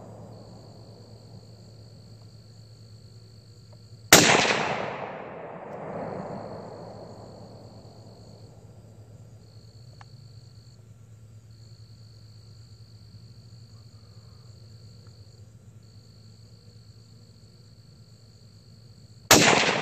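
Two SKS rifle shots firing 7.62×39mm Hornady 123-grain SST rounds, about 4 seconds in and again near the end, each a sharp crack followed by a rolling echo that dies away over about two seconds.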